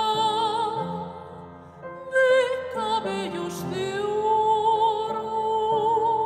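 Operatic soprano singing a slow romantic Mexican ballad with piano accompaniment. She sustains long notes with a wide vibrato, and a long held note fills the second half.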